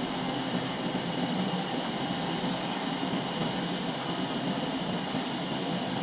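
Horizontal band sawmill running and sawing lengthwise through a large log, a steady, unbroken saw-and-motor noise.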